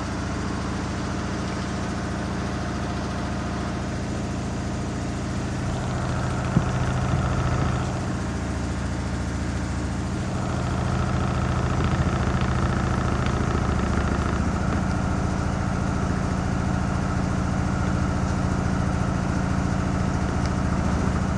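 Washing machine in its final spin: motor hum and drum rumble running steadily at high speed, growing a little louder about halfway through as the spin builds.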